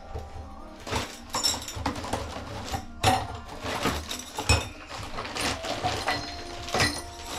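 Plastic bags crinkling and small parts clicking as a Gerber tub/shower repair kit is unpacked from its clear plastic box, in irregular rustles and clicks.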